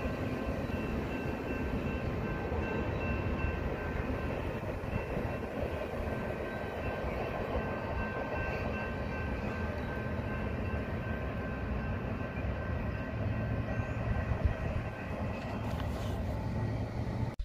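Double-stack intermodal freight train rolling along the tracks, a steady rumble with faint steady high tones above it.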